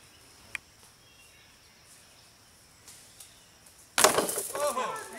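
A disc golf disc hits the hanging chains of a metal disc golf basket about four seconds in: one sudden loud clash, then the chains jangle and ring for about a second. A single sharp click comes about half a second in.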